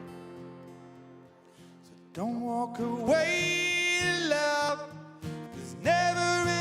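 Live band music: a held chord fades away, then about two seconds in a sustained melody line of long, sliding notes comes in.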